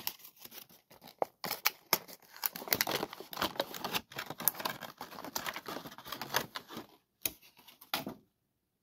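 Close handling noise: crinkling and rustling broken by many sharp clicks, stopping abruptly near the end.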